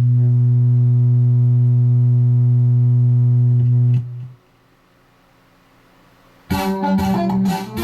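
A single low instrument note held steady and loud, which cuts off about four seconds in. After a short lull, a backing track with a beat kicks in near the end.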